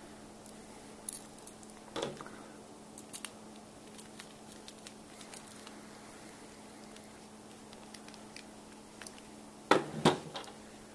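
Small stamped-metal construction-kit parts clicking and clinking as they are handled and a screw is turned with a small screwdriver: scattered light ticks, a louder knock about two seconds in, and two louder knocks close together near the end.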